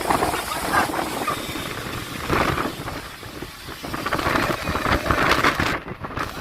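Storm noise of wind and heavy rain at sea, rising and falling in irregular surges.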